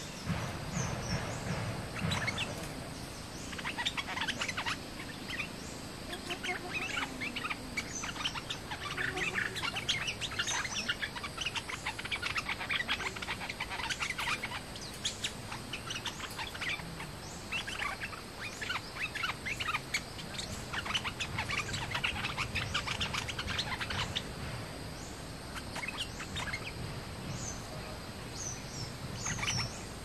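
Bulbuls chattering and calling in repeated bouts of rapid notes, with quieter spells between the bouts.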